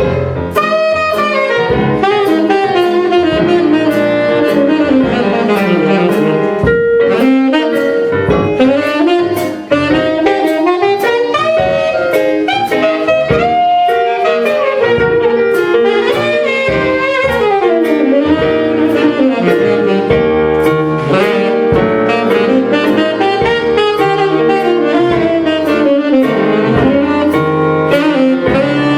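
Saxophone playing a slow worship melody with smooth glides and long held notes, over an accompaniment with a steady beat.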